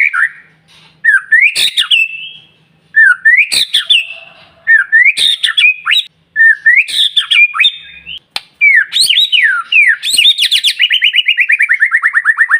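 White-rumped shama (murai batu) singing insistently: short, loud whistled phrases of quick rising and falling notes, one after another with brief pauses, breaking into a long, fast trill of repeated falling notes, about ten a second, near the end.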